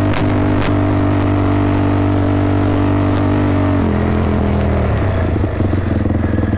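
Sport ATV engine running at steady high revs, then the revs drop about four seconds in and settle to a pulsing idle near the end. A few sharp clicks come in the first second.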